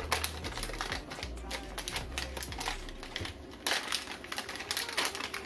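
Clear plastic packaging bag crinkling and crackling in the hands as it is opened to unwrap a small MP3/Bluetooth player board: rapid, irregular clicky crackles.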